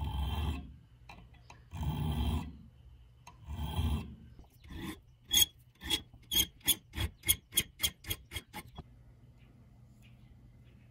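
Hand file rasping across the end of a steel pin clamped in a bench vise: three slow, long strokes, then a quicker run of about a dozen short strokes that stops about nine seconds in.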